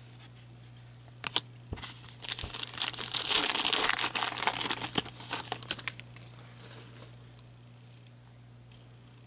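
A trading-card pack wrapper is torn open and crumpled by gloved hands. A couple of sharp crinkles come about a second in, then a burst of dense crinkling and tearing that lasts about four seconds before it dies away.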